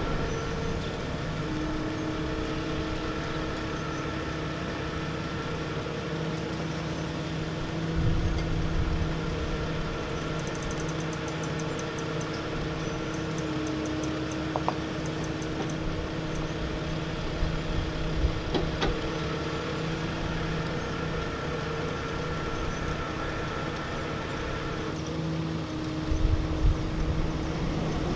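A vehicle engine running steadily at low revs, with two brief surges of low rumble, one about eight seconds in and one near the end.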